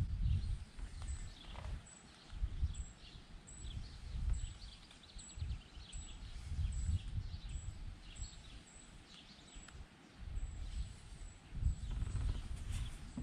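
Wind buffeting the microphone in uneven gusts, with faint high chirps repeating about twice a second.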